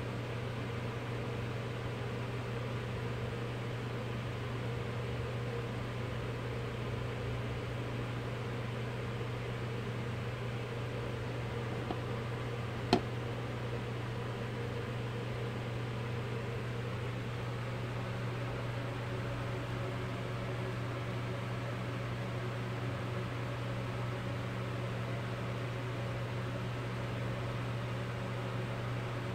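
A steady low machine hum with an even hiss over it, unchanging throughout, and a single sharp click about halfway through.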